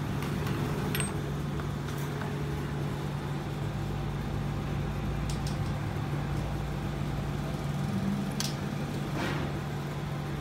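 Steady low hum of a running machine, with a few light metallic clicks and knocks.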